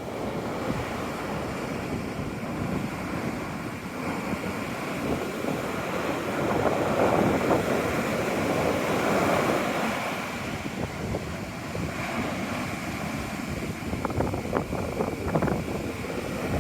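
Sea waves washing in, swelling to a surge around the middle and easing off, with wind buffeting the microphone.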